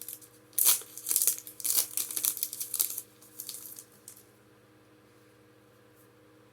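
Foil wrapper of a Pokémon booster pack being torn open and crinkled in the hands, in quick crackling bursts for about three seconds that die away about a second later.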